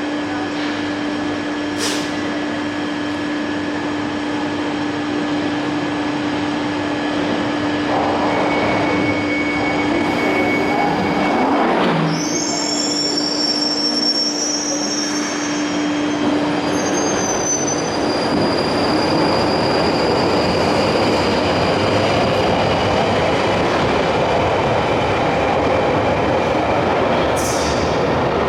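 London Underground 1995 stock train running on the Northern Line, with a steady rumble of wheels on track and a low steady hum. Partway through, the wheels squeal with high-pitched screeches for several seconds. The hum then fades and the running noise grows a little louder.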